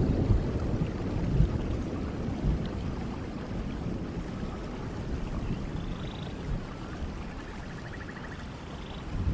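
Nature-sound background track: a low rumble that dies away over the first few seconds above a steady watery hiss like rain or a stream, with a few faint high chirps and a short buzzy trill in the second half.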